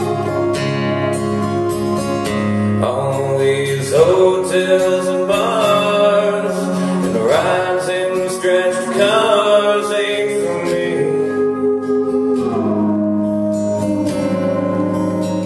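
Live band playing a slow song on guitars, with a lead line that slides and wavers between notes over steady held chords.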